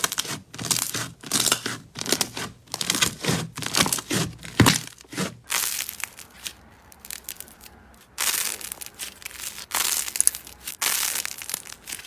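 Hands kneading and stretching glossy slime, with rapid crackling and clicking pops. After about six seconds a squishy stress ball with a cracked coating is squeezed, giving two longer crinkly, crunching crackles.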